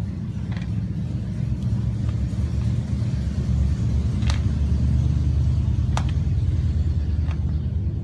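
Low, steady motor rumble like a vehicle engine, growing louder towards the middle. A few sharp ticks sound over it.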